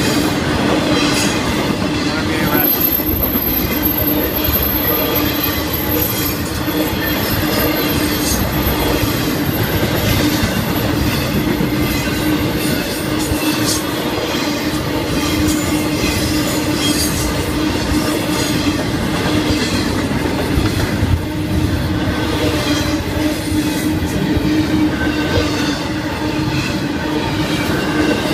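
Florida East Coast Railway freight cars rolling past: a continuous rumble and clatter of steel wheels on the rails, with a steady droning tone and scattered sharp clicks.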